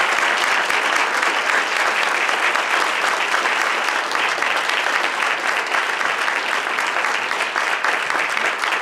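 Audience applauding: a steady, dense round of clapping that keeps up without a break.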